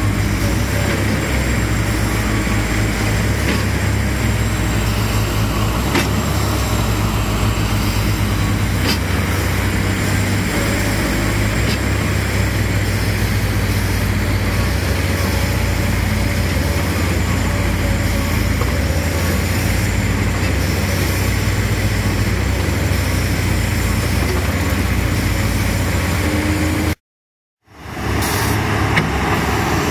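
Heavy diesel engines of a backhoe and a mud-stuck vibroseis truck running steadily under load as the backhoe tows the truck by cable. The sound breaks off for about a second near the end, then resumes.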